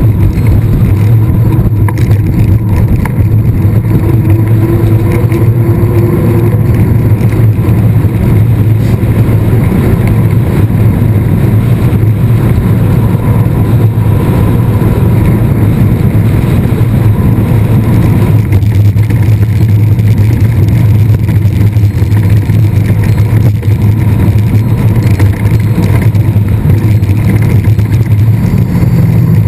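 Loud, steady wind rush and tyre rumble of a mountain bike being ridden at speed, picked up by a camera riding on the bike. The upper hiss eases slightly about two-thirds of the way through.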